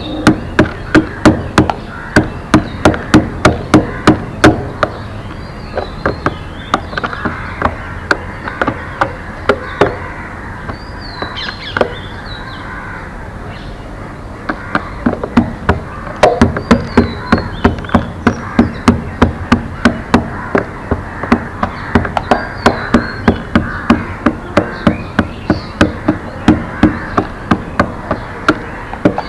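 Runs of sharp, rhythmic knocking, about three knocks a second, broken twice by quieter stretches, with small birds chirping over it.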